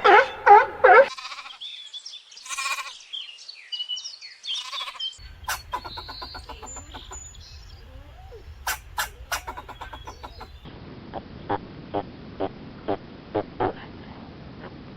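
Farm animal calls from several clips cut one after another, including goat bleats, ending with a pig's regular short grunts about twice a second from roughly eleven seconds in.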